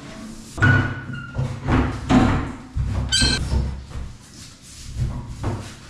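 Bathtub being pushed and settled into its tiled surround: a run of irregular knocks and thuds, with a short squeak about a second in and a higher squeak about three seconds in.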